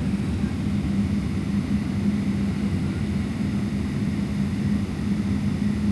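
Steady cabin noise inside a Boeing 777-300ER airliner: a low, even rumble from its GE90 jet engines and airflow, with a constant hum running through it.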